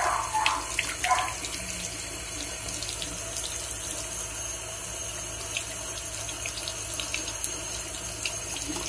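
Bathroom sink faucet running steadily, its stream pouring into the open beak of a rubber chicken toy and splashing into the basin.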